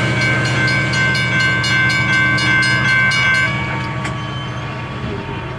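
Loaded autorack freight train rolling by, its wheels clicking over rail joints several times a second under a steady high squeal. The clicking and squeal stop about three and a half seconds in and the rumble fades as the train moves off.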